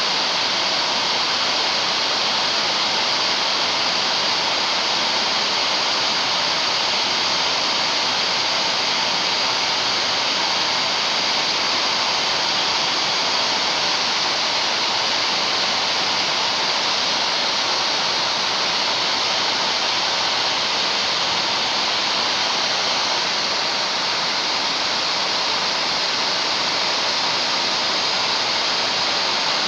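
Hair dryer blowing steadily: a constant rushing of air with no change in level.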